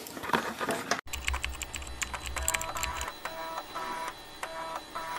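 In the first second, a few clicks and rattles as the low-profile CPU cooler is handled. Then, after a sudden cut, an end-card sound effect: rapid keyboard-like typing clicks with short electronic beeps repeating in a pattern, over a low drone that stops about three seconds in.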